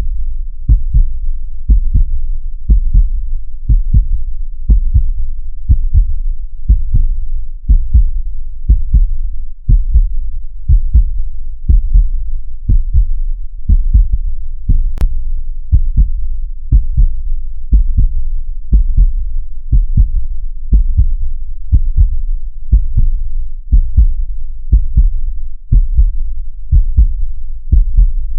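Human heartbeat: a steady rhythm of low, deep lub-dub double thumps, roughly one beat a second.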